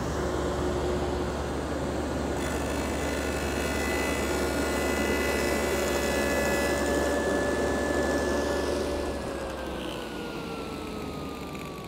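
Table saw running with a stacked dado cutter, which is raised up through the throat plate to cut into a wooden sacrificial fence. A higher whine joins in about two and a half seconds in as the cutter bites the wood. From about nine seconds in, the pitch falls steadily as the saw winds down.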